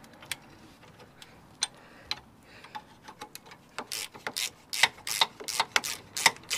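Ratchet spanner clicking as the 15 mm nuts and bolts holding the shock absorber anchor point to a van's front bottom arm are undone: a few scattered clicks, then from about four seconds in a quick, even run of clicks, around four a second.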